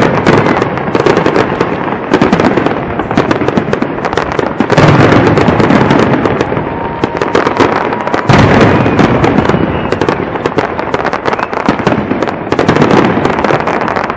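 Loud fireworks display: dense, rapid crackling from crackling stars goes on throughout. Heavy booms of aerial shells bursting come about five seconds in and again a little after eight seconds.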